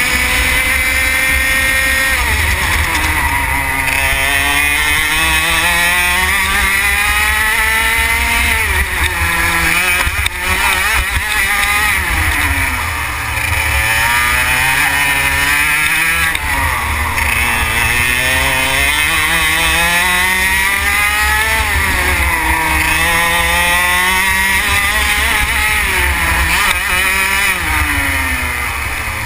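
Racing kart engine heard from onboard at full song, its revs climbing along the straights and dropping sharply for each corner, over and over through the lap. A steady low rumble runs underneath.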